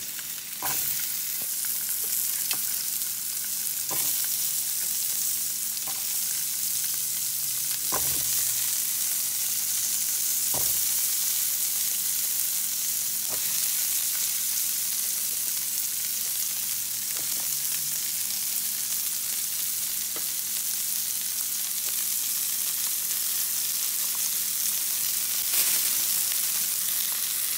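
Diced red onion, celery, carrots and peppers sizzling in hot oil and lamb drippings in a stainless steel sauté pan, a steady frying hiss. A few short knocks stand out now and then.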